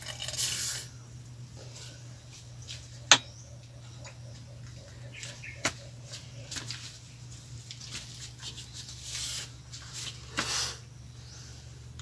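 A steady low hum with two sharp clicks and a few brief soft hisses.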